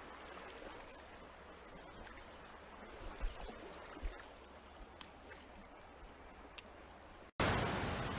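Shallow stream running over stones, with a few low bumps and sharp clicks about three to five seconds in. Just after seven seconds the sound cuts to louder, rushing water.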